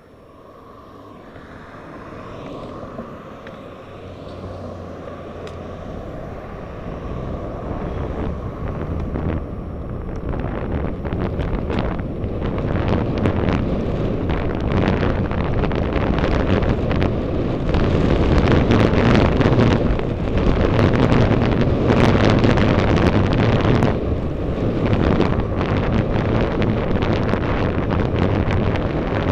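Wind buffeting the microphone of a camera mounted on a road bicycle. It grows steadily louder as the bike picks up speed, then turns to a loud, rough rush in the second half.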